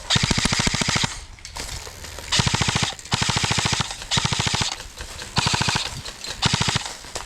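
Airsoft gun firing on full auto in about six short bursts of rapid, evenly spaced shots, each burst under a second long.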